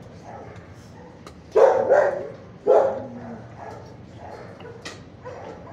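Dogs barking in a shelter kennel block: a burst of loud barks between about one and a half and three seconds in, over fainter barking throughout.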